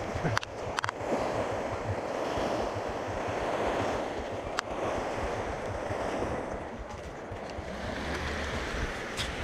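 Small lake waves washing and breaking onto a stony shore, with wind buffeting the microphone. A few sharp clicks near the start, once in the middle and once near the end.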